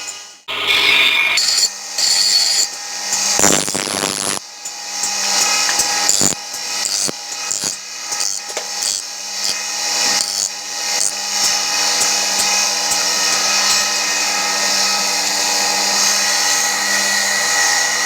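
Electric power grinder running steadily, grinding steel as a forged knife blade is shaped, with a louder surge of grinding noise about four seconds in.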